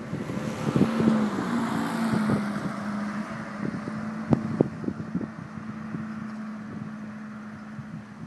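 A car passing close by and driving away down the street: engine and tyre noise swell in the first two seconds, then fade, leaving a steady low engine hum with scattered light clicks.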